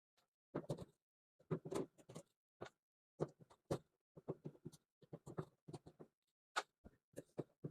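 Screwdriver and hands working at the back panel of a portable clothes dryer: a string of short, irregular clicks and scrapes with brief gaps between them.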